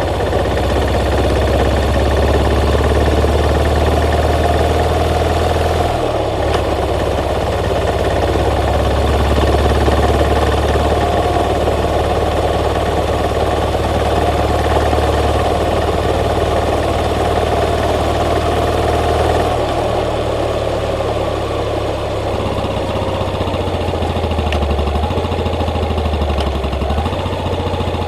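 Yamaha SR400's air-cooled single-cylinder engine running steadily, its low note shifting slightly a few times.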